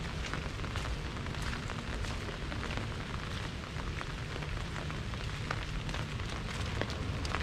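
Rain falling on an umbrella: a steady hiss of rain with many sharp, irregular drop taps, over a low rumble.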